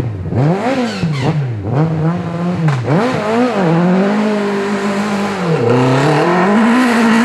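Peugeot rally car's engine revved hard up and down again and again as the car works free of the roadside grass after going off, then held at steadier high revs with one brief dip as it pulls back onto the road.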